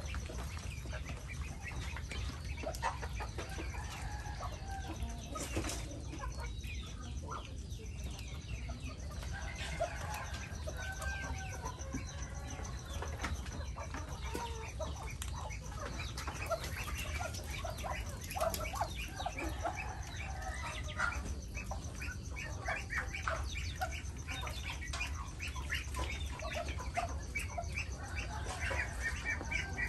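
A mixed farmyard flock of domestic chickens and Muscovy ducks calling: many short clucks and cackles, busier in the second half, over a steady low rumble.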